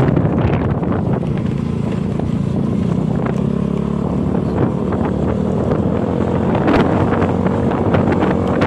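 Motorcycle engine running at a steady speed while riding, with wind buffeting the microphone.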